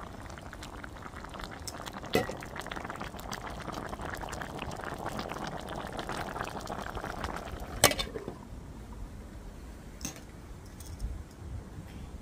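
Catfish curry bubbling and popping at a simmer in a stainless steel pan. About eight seconds in there is one sharp knock, and after it the bubbling is quieter.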